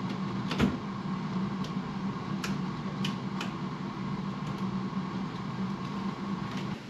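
Steady low mechanical hum of a hotel room's ventilation fan, which stops near the end. A sharp click about half a second in and a few lighter clicks between two and three and a half seconds come from the room door and the key-card slot being worked.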